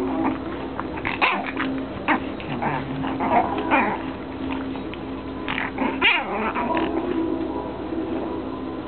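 Shih Tzu puppy and its mother playing together, giving short scattered yips and little growls over a steady hum.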